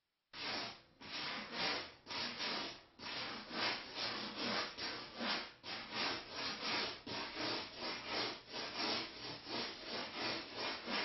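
Hand tool abrading the styrofoam master plug of a molded aircraft fuselage in repeated back-and-forth scraping strokes, about two a second. It starts abruptly just after the start.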